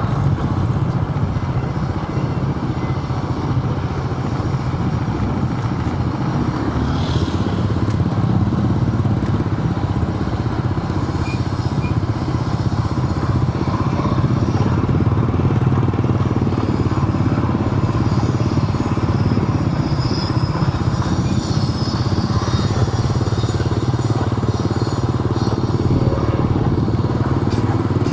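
Steady engine and road rumble of a vehicle being driven along a city street.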